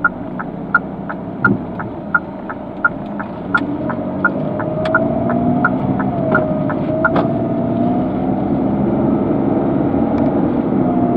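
A car's turn-signal indicator ticking about three times a second during a turn, stopping about seven seconds in. Under it the car's engine and road noise hum steadily, growing louder from about four seconds in as the car speeds up.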